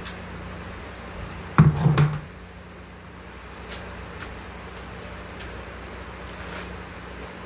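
Steady hum of an electric fan running, with a short, loud thump of something being handled or set down about a second and a half in, and a few light clicks.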